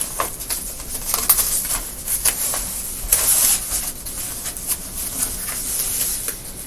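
Cardboard pieces being handled and shifted: irregular rustles and light clicks, with a longer scrape about three seconds in.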